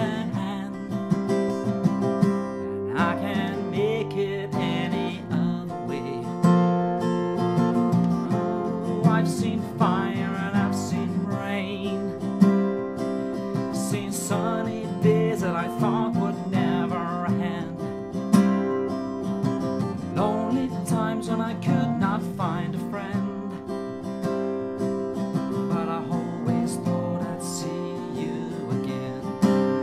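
Acoustic guitar played solo, strumming chords steadily through an instrumental passage.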